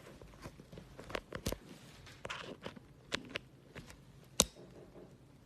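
Handling noise from setting up audio gear: a scattering of short clicks and knocks, about six of them, the loudest about four and a half seconds in.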